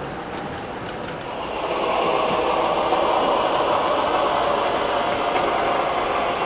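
O scale model trains rolling on three-rail track. About two seconds in, a louder steady engine rumble from an MTH Premier Seaboard Centipede diesel set's onboard sound system comes in as the locomotives approach, over the wheel noise.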